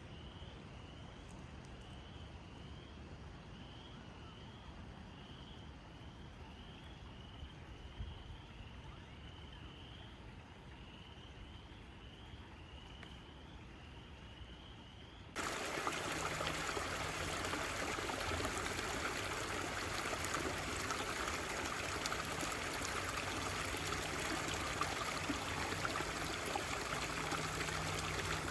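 Creek water running, a loud steady rush that starts abruptly about halfway through. Before it, a quiet stretch with only a faint high chirp repeating steadily, under twice a second.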